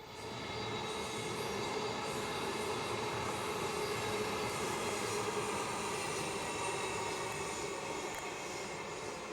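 Queensland Rail electric suburban train passing, a steady whine over rolling rail noise that starts abruptly and eases slightly near the end.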